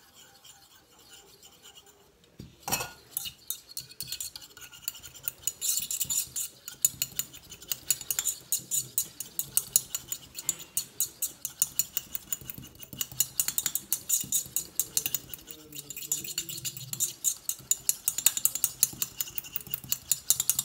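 A thin utensil stirring fast in a small stainless-steel pot, clicking rapidly and steadily against the metal as two heated phases of a hand cream are beaten into an emulsion. A single knock about three seconds in, before the stirring starts.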